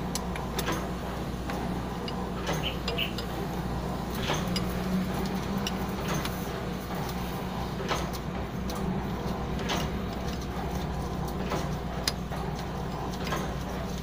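Wrench clicking and knocking against the metal bleed fitting on a diesel fuel filter housing as it is loosened to bleed air from the fuel line, scattered light metallic clicks over a steady low hum.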